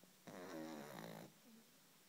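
Sleeping puppy snoring: one pitched, wavering snore lasting about a second, starting a quarter second in, then a faint short snore about a second and a half in.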